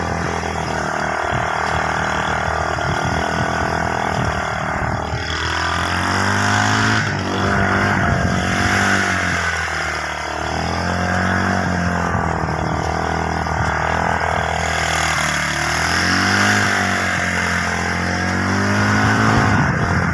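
A 125cc motorcycle engine running under way, its pitch rising and falling again and again as the throttle opens and closes.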